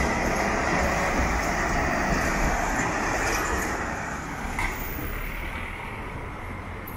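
Tatra KT4 articulated tram passing close by, its wheels and running gear on the rails giving a dense, steady rumble that fades after about four seconds as it moves away, leaving quieter street traffic with a short click.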